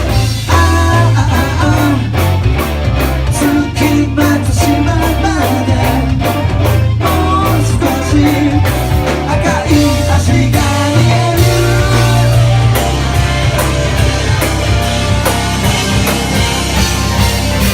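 A live rock band playing a song: drums keeping a steady beat under bass and guitar, with singing over it.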